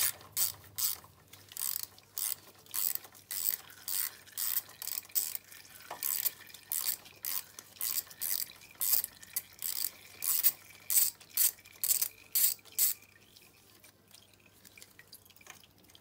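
Socket ratchet wrench clicking in a steady run, about two to three clicks a second, as the exhaust header nuts on a moped engine are loosened; the clicking stops about three seconds before the end.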